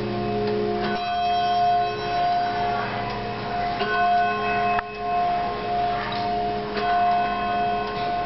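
Tubular-chime grandfather clock sounding its brass chime tubes: a slow series of strikes about a second apart, each tone ringing on and overlapping the next.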